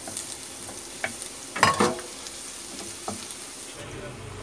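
Minced garlic sizzling in hot oil in a nonstick pan as a wooden spatula stirs and scrapes it, with a few light clicks and one louder knock of the spatula against the pan about a second and a half in. The sizzle eases off near the end.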